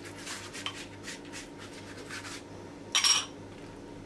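Silicone pastry brush spreading sauce over a sheet of yufka pastry in soft, repeated rubbing strokes, with a brief louder, slightly ringing scrape about three seconds in.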